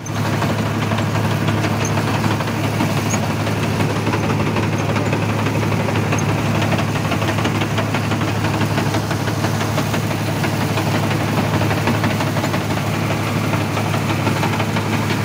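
Sonalika RX 60 tractor's diesel engine running steadily under load, driving a straw reaper that picks up and chops wheat stubble into chaff. It is a steady low drone with the machine's busy rattle over it.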